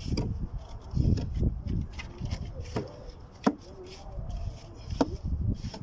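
Shovel scooping and scraping sand in repeated strokes, with two sharp knocks partway through and about five seconds in.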